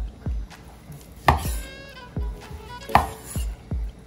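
Large kitchen knife slicing through smoked brisket and striking a wooden cutting board: a dull thud with each cut, with two sharper knocks about a second and a half apart.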